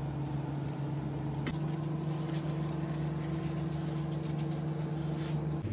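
Steady mechanical hum of kitchen equipment, a few fixed tones over a low drone, shifting slightly about one and a half seconds in. Faint clicks sound over it.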